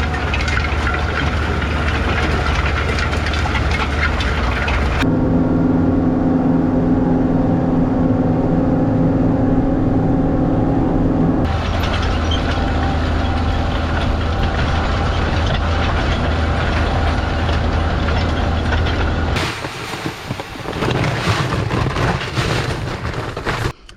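Tractor engine running steadily while pulling a disc through dry field soil. The sound changes abruptly about five, eleven and nineteen seconds in, with a strong pitched engine hum in the middle stretch. The last few seconds are quieter and uneven.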